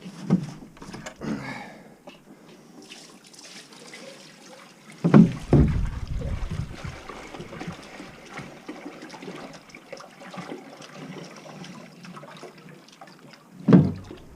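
Water trickling and sloshing, with a few heavy dull thumps: one near the start, a louder cluster about five seconds in, and one near the end.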